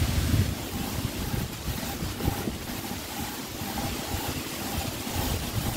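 Aluminum cylinder head being slid back and forth by hand on coarse 40-grit sandpaper glued to a granite slab: a continuous gritty scraping as the warped deck face is ground flat.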